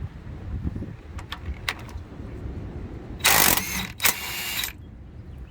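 A socket wrench on the 13/16 lower shock-mount bolt: a few single clicks, then two quick loud bursts of ratcheting about three seconds in.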